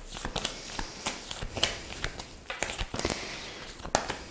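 A deck of tarot cards shuffled by hand: a run of light, irregular clicks and flicks as the cards slide and snap against each other.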